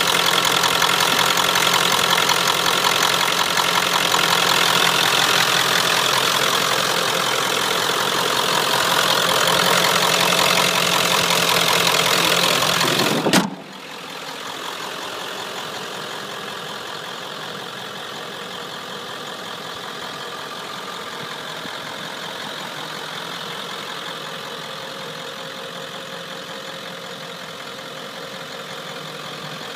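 Ford 7.3L Power Stroke turbo-diesel V8 idling steadily. About 13 seconds in a single thump is heard, after which the engine is quieter and further off.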